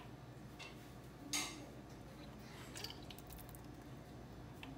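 Quiet room tone with a brief soft rustle about a second in and a few faint light ticks.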